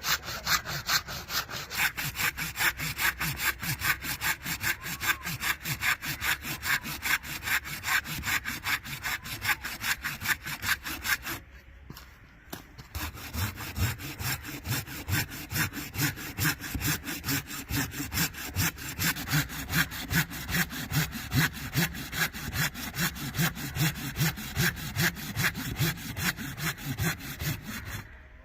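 Hand saw cutting through wood in steady, rapid back-and-forth strokes. It pauses briefly about twelve seconds in, then resumes.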